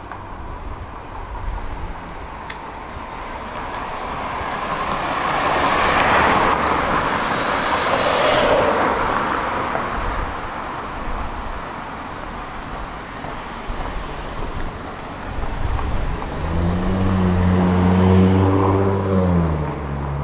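A tram running through city street traffic. A vehicle swells past in the middle. Near the end a low engine hum holds steady, then drops in pitch.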